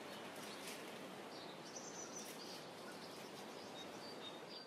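Faint outdoor ambience: a steady hiss with a few faint bird chirps about two seconds in and again near the end.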